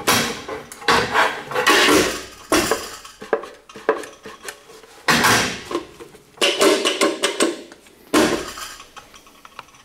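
Cheap TIG welding foot pedal worked by hand on a steel welding table, clacking and rattling in a series of about seven separate knocks with short ringing tails. The top has play before it engages, and the pedal sounds cheap.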